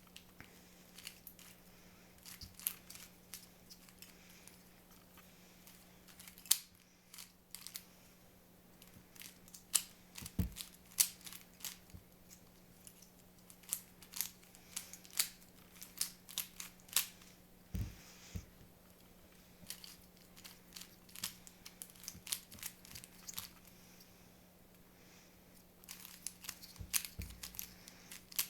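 Miniature speed cube being turned rapidly in the hands, its plastic layers clicking in quick, irregular runs.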